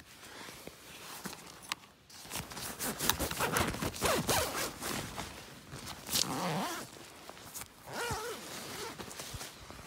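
Zipper on a nylon bivy sack being pulled in several strokes, with the fabric rustling.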